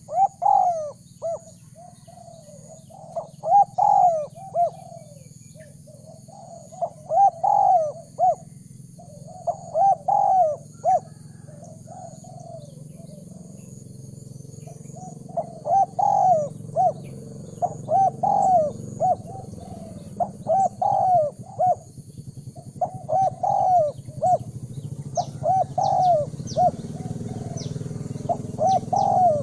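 Spotted dove cooing its repeated phrases, one burst of coos every two to three seconds, over a steady high insect whine.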